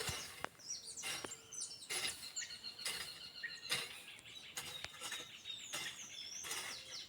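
Several birds chirping with many short, quick calls, and a thin high trill running through the middle few seconds.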